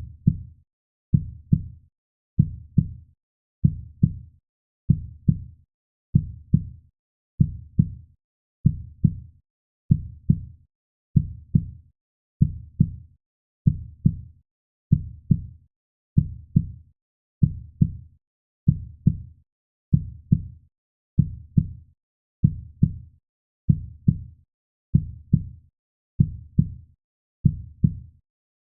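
Slow, steady heartbeat: a low double thump (lub-dub) repeating a little under every second and a half, with quiet between beats.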